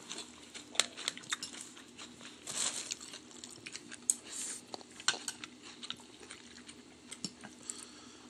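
A porcelain soup spoon and chopsticks clinking and scraping against a ceramic bowl of noodle soup, with scattered light clinks.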